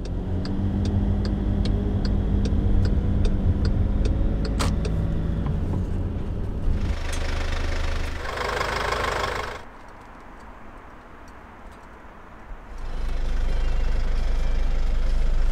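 Van engine running at idle, with a regular tick about twice a second over it. A short burst of rushing noise comes in the middle, then a quieter stretch, and the engine hum returns steadily near the end.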